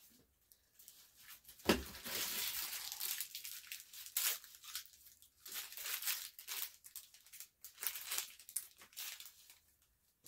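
A knock about two seconds in, then packaging being torn open and crinkled in irregular bursts for several seconds as an item is unwrapped.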